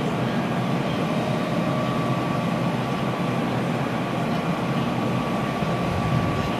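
ChS7 electric locomotive approaching slowly under its own power, a steady even hum with a thin, high steady tone running through it.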